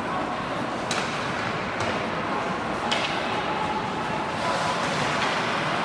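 Ice hockey game play on the rink: a steady wash of arena noise with three sharp clacks, about a second apart.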